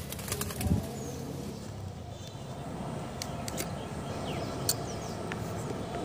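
Bamboo sticks of a bird trap clicking and tapping as its trigger is prodded with a stick: a few sharp clicks over a steady outdoor background, with soft thumps near the start.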